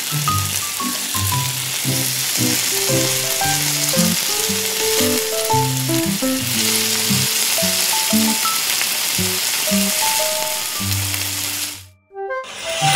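Bacon slices frying in hot oil in a small steel wok: a steady, dense sizzle that cuts off suddenly near the end.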